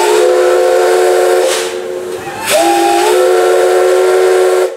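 C11 steam locomotive's whistle blowing two long blasts, each a steady chord of several notes. The first blast is already sounding and stops after about a second and a half; the second starts about two and a half seconds in and cuts off near the end.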